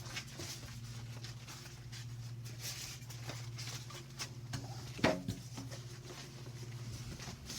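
Cardboard and plastic packaging being handled: scattered small rustles and taps, with a sharper knock about five seconds in, over a steady low hum.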